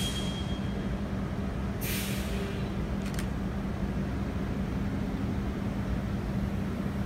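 Air brakes hissing twice, about two seconds apart, over a steady low hum.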